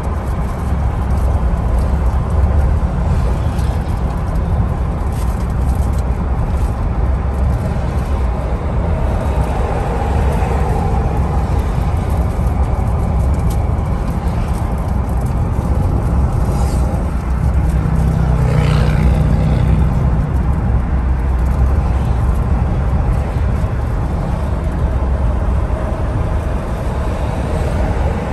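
Car on a highway heard from inside the cabin: steady road and engine rumble at cruising speed. A brief pitched sound rises and falls over it about 19 seconds in.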